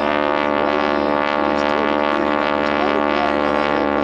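North American T-6 Texan (SNJ) in flight, its radial engine and propeller giving a loud, steady drone of many even tones; the prop tips are running at supersonic speed, the source of the type's signature rasp.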